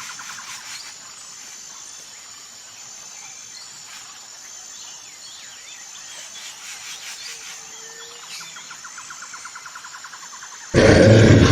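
Recorded jungle ambience from a dark ride's sound system: insects trilling and chirping in rapid pulses, with a high repeated chirp and an occasional low call. Near the end a much louder, rumbling sound effect cuts in suddenly.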